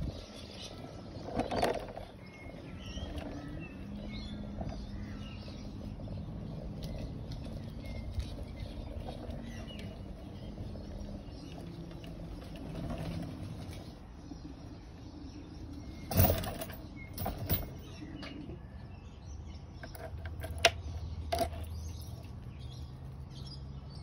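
Small birds chirping faintly over a steady low hum, with a few sharp knocks and rattles, the loudest about two-thirds of the way in.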